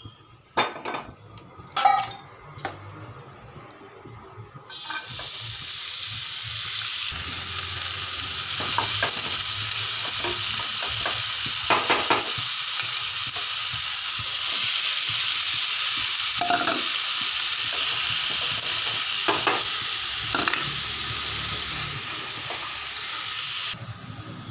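Chopped spring onions sizzling in hot oil in a non-stick frying pan, stirred with a wooden spatula that now and then knocks against the pan. A few sharp clicks and knocks come first, the steady sizzle starts about five seconds in, and it falls away abruptly near the end.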